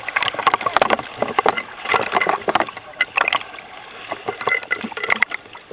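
Seawater splashing and sloshing around a camera held at the water's surface, in a dense run of irregular sharp splashes as swimmers move their arms in the water.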